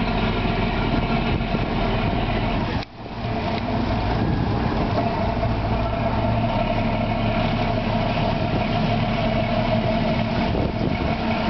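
Lobster boat's inboard diesel engine running steadily at low speed as the boat pulls away from the dock, with a brief dropout about three seconds in.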